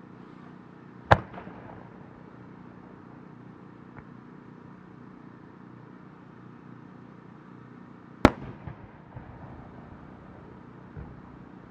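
Large aerial firework shell: a sharp boom about a second in as it is fired from its mortar, then a second loud boom about seven seconds later as it bursts high overhead, echoing briefly with a few small pops after it.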